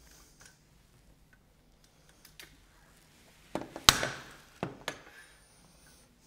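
A quiet stretch with faint ticks, then a few sharp knocks and clicks of roller-blind frame parts being handled against a worktop, the loudest around four seconds in and one more a second later.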